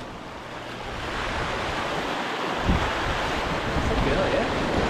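Sea surf breaking and washing over shoreline rocks, growing louder over the first couple of seconds, with wind buffeting the microphone and a low thump a little past halfway.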